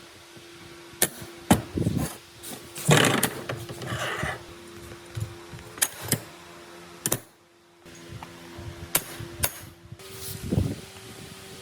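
Hand work on parts in a workshop: scattered sharp clicks and knocks of tools and parts being handled, with a couple of short scraping rushes and a faint steady hum underneath, briefly cut off about seven and a half seconds in.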